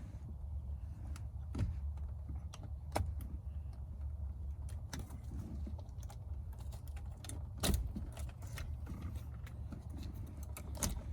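Scattered small clicks and rattles of a 4 mm Allen wrench pressed into the release holes behind a steering wheel to unlatch its clips, with one sharper click about two-thirds of the way in, over a low steady hum.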